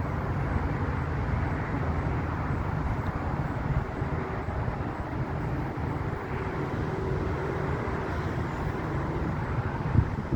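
Steady rumble of road traffic, heaviest in the low end; a faint droning tone rises out of it for a few seconds in the middle.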